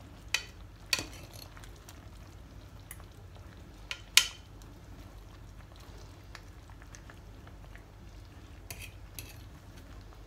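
A metal spoon and fork clinking against the pot and each other as poached quince halves are turned over in syrup. There are a few sharp clinks: two near the start, the loudest about four seconds in, and two softer ones near the end, over a steady low background.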